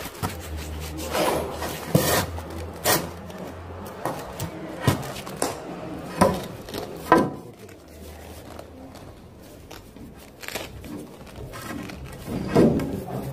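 A wooden board being handled by hand: a series of irregular sharp knocks and some rubbing. The knocks come several in the first seven seconds, then there is a quieter stretch, then more near the end.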